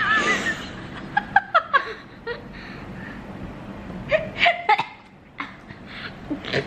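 A girl laughing and giggling in short bursts, starting with a high, wavering laugh.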